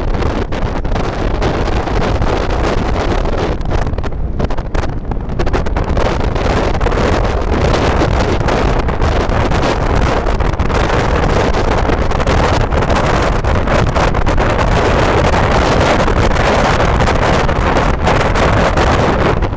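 Heavy wind buffeting the microphone of a camera on a moving vehicle at road speed, over steady road and vehicle noise.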